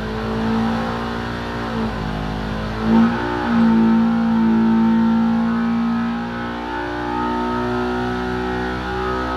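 Stock 2019 Polaris RS1 engine, a ProStar 1000 parallel twin, running hard under load on an engine dyno during a power pull, its revs climbing slowly from about 6,000 to over 7,000 rpm. The engine sound gets briefly louder about three seconds in.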